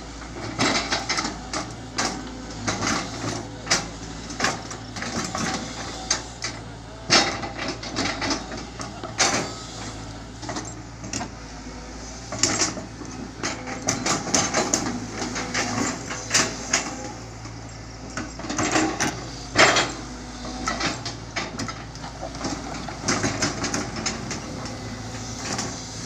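CAT 320 GC excavator at work: its diesel engine runs steadily under frequent irregular knocks and clanks of metal and wood as it works.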